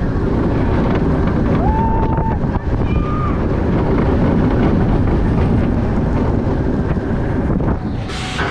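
Wind buffeting the microphone over a steady low rumble, with two short whistle-like tones about two and three seconds in.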